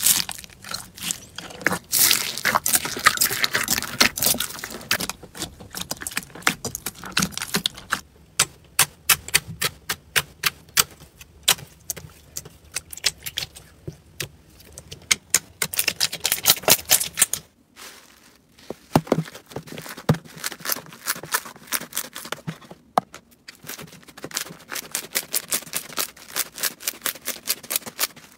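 Slime being pressed and squeezed by hand, giving rapid sharp clicks and pops: a dense crackle for the first several seconds, then a run of separate, evenly spaced pops.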